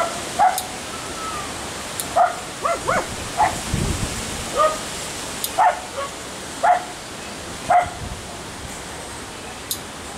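A dog barking repeatedly, short barks coming roughly once a second, with a few higher yips in quick succession about three seconds in. Several sharp clicks are heard as well.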